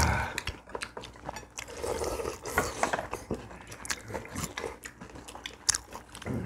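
Table eating sounds: metal chopsticks and spoons clicking irregularly against ceramic bowls and plates, with chewing.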